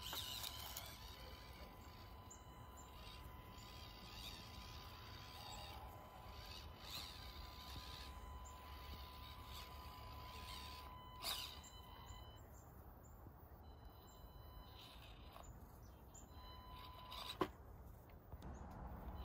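Faint outdoor ambience with scattered bird chirps over a low steady rumble and a faint steady tone. Two sharp knocks are heard, one a little past the middle and a louder one near the end.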